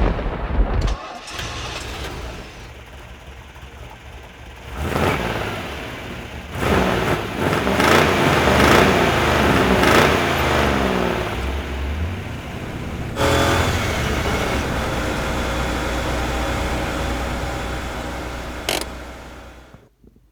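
Car engine sound, revving with rising and falling pitch through the middle, then running steadily before fading out near the end.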